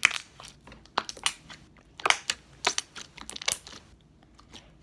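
Thick green slime being squeezed and poked by hand, giving irregular wet clicks and pops, thickest in the middle and thinning out near the end.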